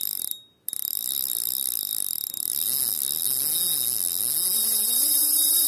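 Fishing reel's drag running as line is pulled off, a fast ratcheting buzz whose pitch rises and falls with the speed of the run. It cuts out briefly about half a second in.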